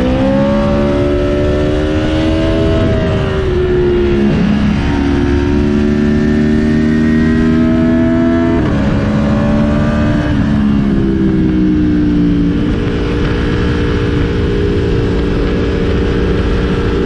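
Aprilia Tuono motorcycle engine pulling hard with the revs climbing. The pitch drops sharply several times as it shifts gear or eases off, then holds steady at cruising speed for the last few seconds. Heavy wind rush on the helmet-mounted mic runs underneath.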